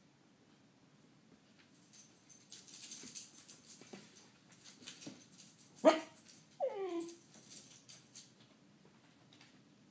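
Cocker spaniel puppy scrabbling and rattling at a metal pet gate for several seconds, with a short yelp about six seconds in and then one whine falling in pitch.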